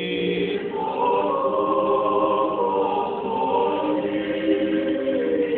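Orthodox church choir singing a slow liturgical chant in several voices, answering the bishop's blessing, with long held chords that change every second or two.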